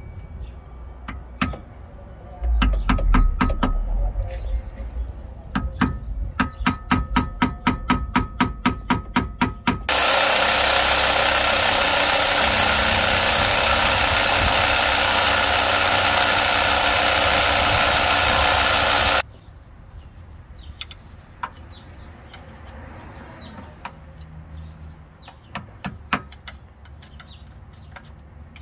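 Reciprocating saw (Sawzall) cutting the thin metal sleeve of an old rear lower shock bushing inside the suspension knuckle: about nine seconds of loud steady sawing that stops suddenly. Before it comes a run of quick, regular clicking strokes, several a second; after it, faint scattered scraping.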